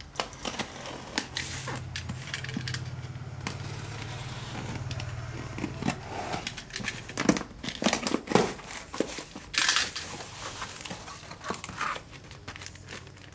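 A cardboard parcel box being torn open by hand: packing tape and paper ripping in sharp bursts, with the box flaps crinkling and scraping, and plastic-wrapped sticker packs crackling toward the end. A low hum runs underneath for the first few seconds.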